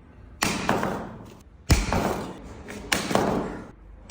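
Metal key lock box dropped onto a hard floor in a drop test: three impacts about a second and a quarter apart, each followed by a brief ring that dies away.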